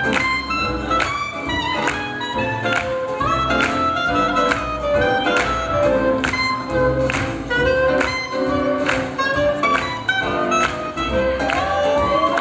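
Live swing jazz band playing an up-tempo tune for lindy hop, drums keeping a steady beat under several melody lines.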